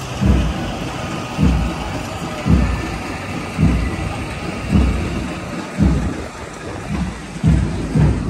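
Street parade sound: deep, regular thumps about once a second over a steady hubbub of the crowd.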